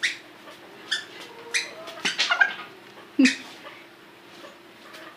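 Chicks peeping: about five short, high-pitched calls that fall in pitch, spaced roughly half a second to a second apart, over a faint steady hum.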